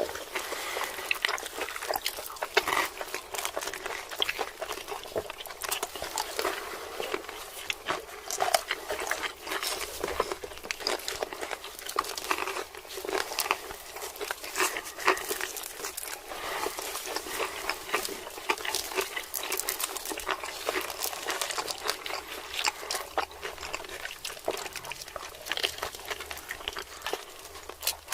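ASMR eating sounds: chewing roast chicken, a dense run of irregular small mouth clicks.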